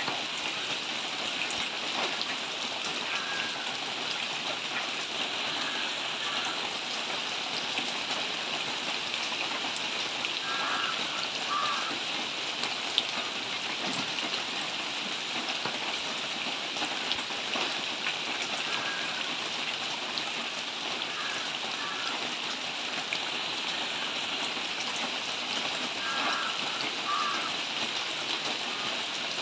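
Steady rain falling: an even hiss dotted with many single drop hits.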